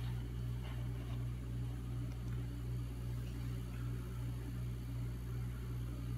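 A steady low hum, with faint brushing sounds in the first second and a couple of tiny ticks about two seconds in.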